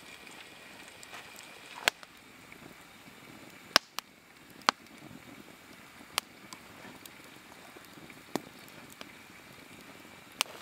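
Wood campfire burning: a soft steady hiss with sharp crackles and pops every second or so.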